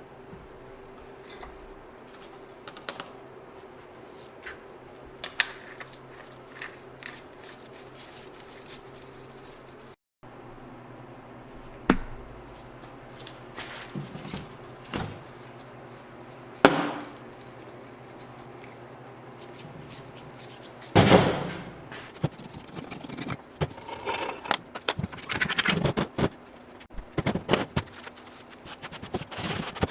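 Scattered knocks, clicks and scrapes of hands-on tool work, over a steady low hum in the first third. After an abrupt cut the clatter grows busier, with a few sharp loud knocks.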